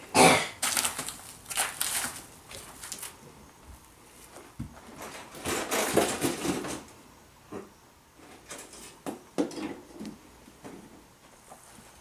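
Scattered rustling and light knocks of handling noise and movement, with a loud rustle just after the start and a longer one around six seconds in.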